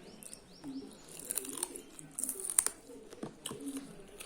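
Close-up chewing with a run of sharp crunches and clicks, loudest about halfway through: teeth biting and crunching through food.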